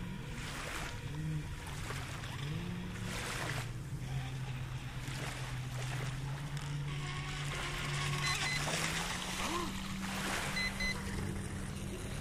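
WLtoys WL913 brushless RC boat running on the water, its motor hum shifting in pitch with the throttle over the wash of small waves. In the second half come a few short paired beeps: the low-voltage alarm, a sign that the 4S lipo is running low.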